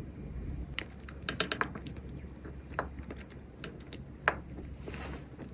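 Light clicks and taps of kitchen utensils and containers being handled, coming irregularly with a quick cluster early and the sharpest tap about four seconds in, then a brief soft rustle.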